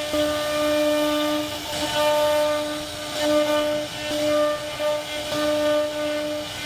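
CNC router spindle whining at a steady pitch, with a hiss, as a carving bit cuts relief patterns into a wooden panel; the whine dips briefly every second or two as the cutting load changes.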